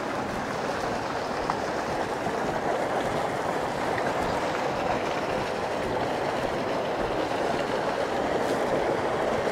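A steady rushing noise with no clear pitch, growing slightly louder toward the end.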